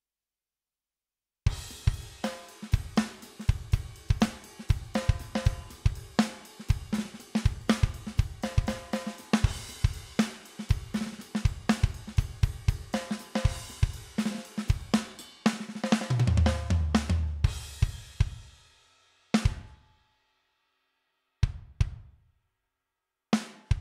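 Sampled drum kit playing a steady groove of kick, snare, hi-hat and cymbals, run through a vari-mu leveling compressor plugin. It starts about a second and a half in, turns into a fill with heavy low drum hits around sixteen seconds in, then breaks down to a few single hits.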